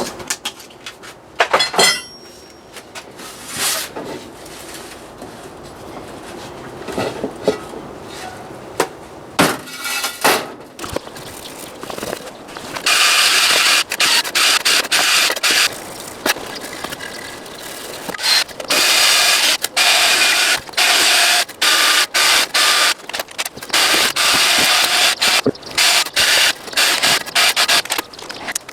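Workshop tool noise on motorcycle parts: scattered clicks and ratcheting at first, then, from about halfway, a loud rasping noise that starts and stops again and again.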